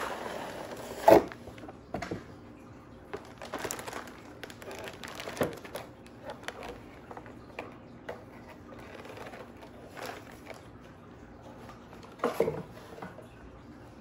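Toy packaging being handled and unpacked: scattered rustling and light knocks of cardboard and plastic, with a sharp knock about a second in and another loud bump near the end.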